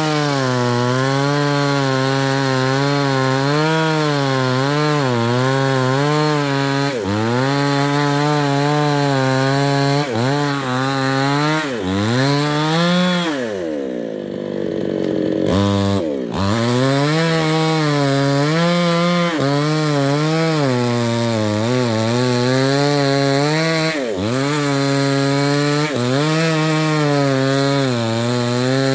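New West 628 two-stroke chainsaw with a 24-inch bar running at high revs while cutting into a thick sengon trunk, its engine pitch wavering as the chain loads and frees in the wood. About halfway through, the revs fall off briefly, then climb back up as cutting resumes.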